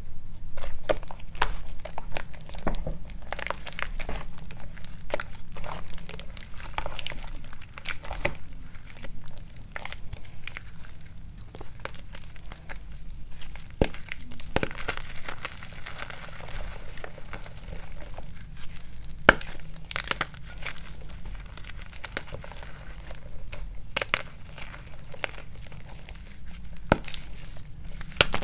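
Hands squishing and kneading thick wet gym-chalk paste over a block of gym chalk, with irregular wet squelches and crackles; in the second half the soaked block cracks and crumbles into chunks in the paste.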